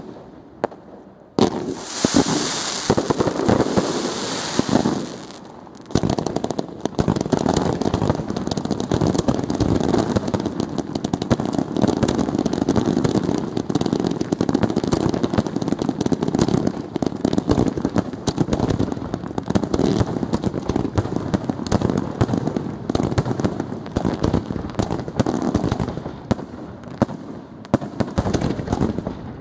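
Professional fireworks display: aerial shells bursting in rapid succession with crackling. A loud hiss starts about two seconds in and lasts about three seconds; after a brief lull, from about six seconds in, comes a dense, unbroken barrage of bangs and crackle.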